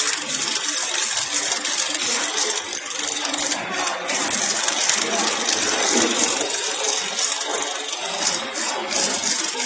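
Bottle sleeving machine running, with empty plastic milk bottles moving along its conveyor as sleeves are applied: a dense, irregular, continuous clatter.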